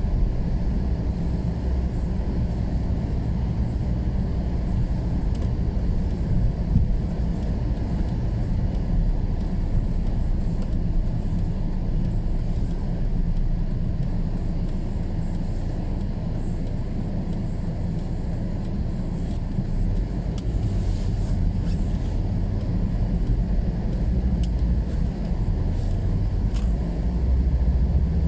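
Steady low rumble of a car's engine and tyres on a snowy road, heard from inside the cabin while driving. About twenty seconds in, another car passes close by with a brief rush of hiss.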